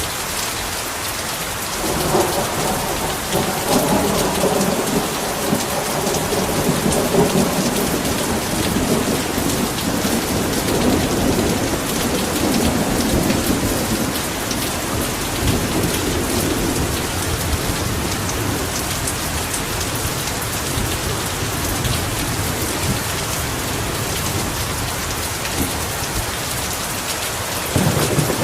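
Heavy rain falling steadily, with a long low roll of thunder rumbling in about two seconds in and fading over more than ten seconds, and another rumble starting near the end.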